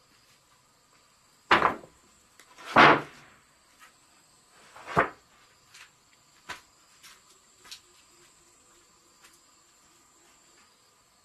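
Sawn wooden planks knocking down onto a stack of boards: three loud wooden clacks in the first few seconds, then a couple of lighter taps. A steady high buzz of insects runs underneath.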